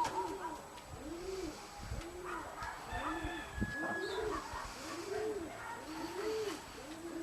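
Domestic pigeon cooing: a steady run of rising-and-falling low coos, about one a second.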